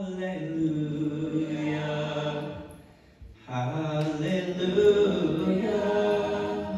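Mixed choir singing sustained chords in two long phrases, with a short break about three seconds in.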